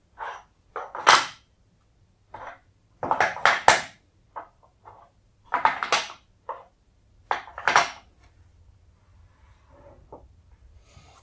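Wooden PERTRA number tiles being set one by one into a wooden insert frame: irregular hard wooden clacks and knocks, often two or three in quick succession. For the last few seconds only faint, soft handling sounds remain.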